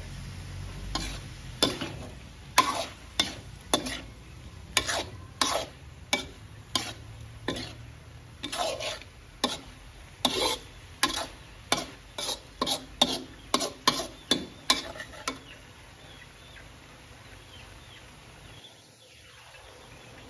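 Metal spatula scraping and knocking against a steel wok as shrimp in curry powder are stir-fried, more than one stroke a second, over a steady sizzle of frying. The stirring stops about fifteen seconds in, leaving only the sizzle.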